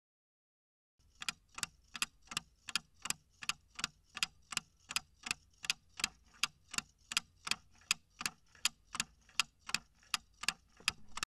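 Clock-ticking sound effect for a countdown timer: even, sharp ticks nearly three a second, starting about a second in and running on as the time to answer runs out.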